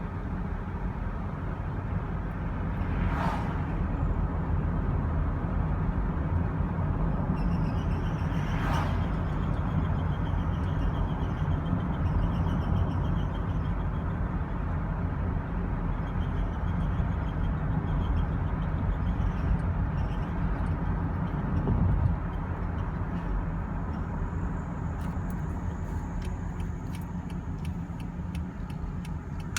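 Steady road and drivetrain rumble inside a moving 2013 Honda Odyssey EX-L, with a faint high-pitched squeak coming and going over it. It is the van's cold-morning squeak, which the owner says is worse when coasting and stops under throttle.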